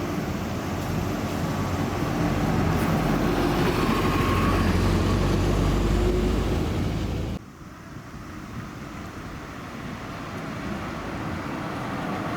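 Large diesel bus engines running close by as buses move in a queue, louder toward the middle. About seven seconds in the sound cuts off abruptly, giving way to quieter traffic noise that slowly builds.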